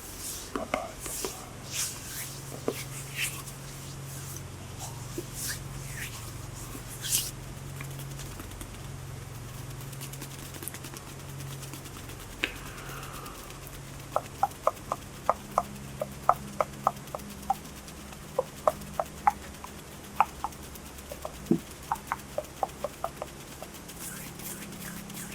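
Close-miked ASMR hand sounds. First come soft brushing and rubbing strokes of hands. Then, from about halfway on, comes a run of quick light clicks of fingers, about two to three a second, over a low steady hum.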